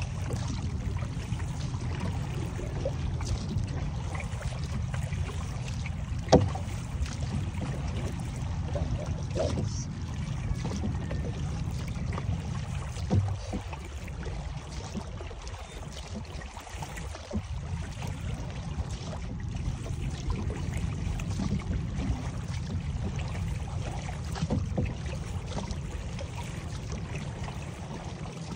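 Water lapping and trickling against the hull of a small paddled canoe moving over calm water, over a steady low rumble. One sharp knock about six seconds in, with a few fainter clicks later.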